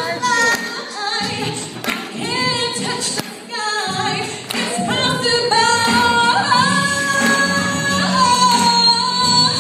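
A woman singing live into a microphone, her voice amplified in a large hall, holding long notes with vibrato from about five seconds in.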